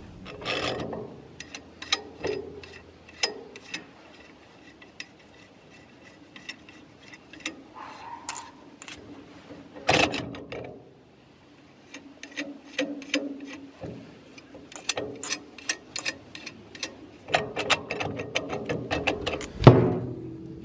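Steel puller parts and a hydraulic ram being handled and fitted by hand: irregular sharp metallic clicks and clinks, some ringing briefly. There is a louder clank about ten seconds in and a quick run of clicks in the last few seconds.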